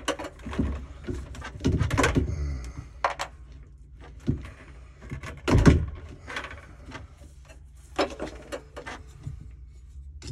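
Scattered clicks and knocks from hands working on water heater wiring and its metal parts, with a louder thump about five and a half seconds in and a brief mutter about two seconds in.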